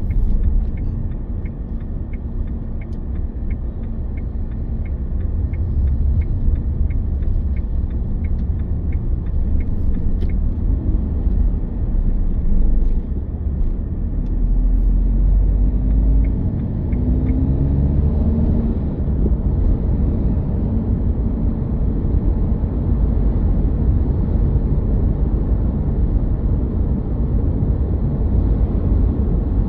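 Car driving on the road, a steady low rumble of engine and tyres. A light regular ticking runs through the first half or so and then stops; about halfway through, the engine note rises as the car speeds up.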